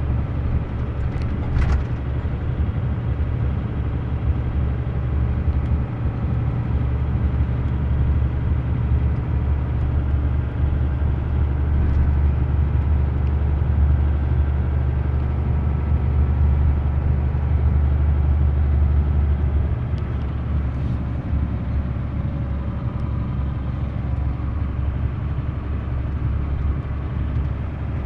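Engine and road noise of a moving vehicle heard from inside the cab: a steady low rumble that grows a little louder midway, with a couple of faint clicks.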